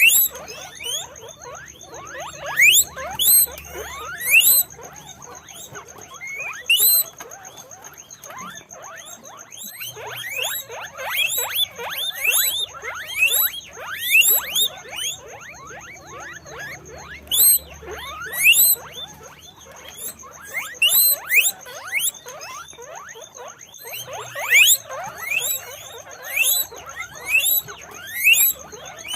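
Guinea pigs squeaking, a quick run of short high rising squeaks that often overlap and come in loud clusters with brief lulls between them.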